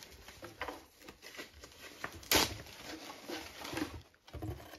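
Soft rustling and crinkling of packing paper and plastic as a gift is lifted out of a cardboard box, with one sharp, louder handling noise a little over two seconds in.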